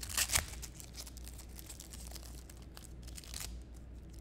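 Foil wrapper of a basketball trading-card pack being torn open: a sharp rip in the first half second, then the wrapper crinkling as it is pulled apart, with another burst of crinkling a little after three seconds in.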